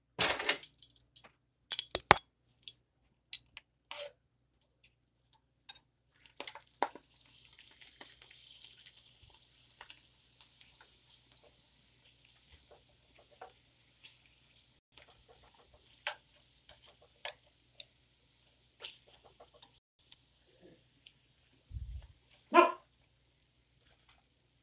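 Tongs clicking and tapping against a frying pan while wagon-wheel snack pellets fry in hot oil, with a stretch of hissing sizzle for a couple of seconds. Near the end comes one short animal call, likely from a household pet.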